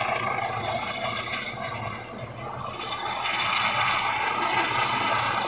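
Police helicopter hovering overhead, its rotor and engine giving a steady drone.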